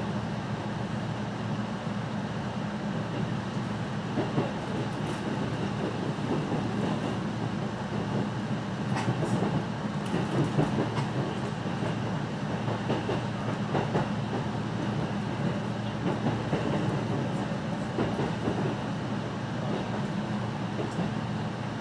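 A JR Central passenger train running, heard from inside the carriage: a steady rumble of wheels on rail, with an occasional sharp click or knock from the track.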